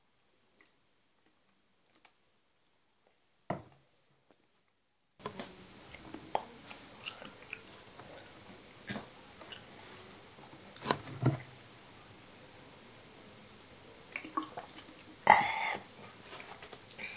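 Close-up mouth sounds of someone chewing a wad of toilet paper: scattered wet clicks and smacks, with one louder burst near the end. The paper is hard to swallow.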